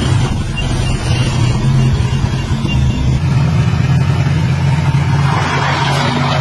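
Heavy diesel engine of construction equipment running with a steady low drone, and a rushing noise that swells over the last second or so.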